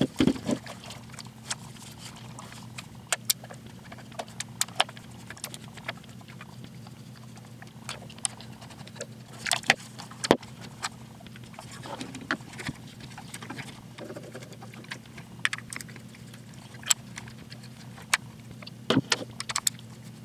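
Handling noise from undressing and taking apart a 1985 Tomy Sylvanian Families animatronic toy bear: irregular clicks and taps of its plastic body and parts, with cloth rustling, over a steady low hum.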